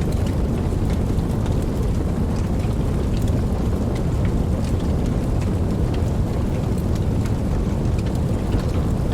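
Steady heavy rain: a dense, deep wash of noise with scattered sharp ticks of individual drops.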